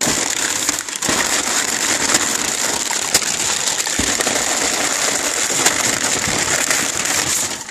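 Tissue packing paper being rummaged and crumpled by hand inside a cardboard box: a continuous, dense, crackling rustle.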